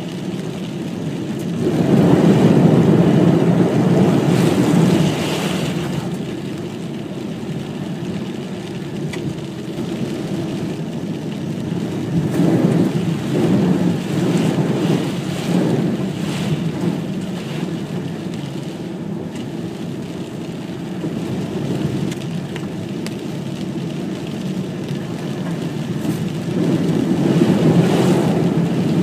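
Land Rover 4x4 driving on wet roads: the engine runs steadily under a rushing water noise, with three louder surges of splashing as it drives through standing surface water, about two seconds in, around the middle, and near the end.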